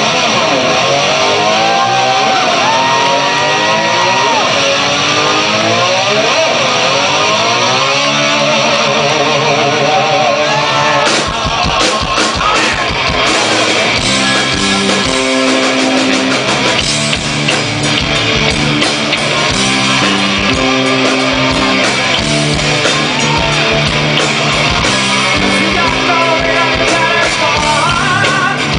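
Live rock music: electric guitar plays gliding, bending notes over a sustained backing, then drums and bass come in about eleven seconds in and the full band plays a steady rock groove.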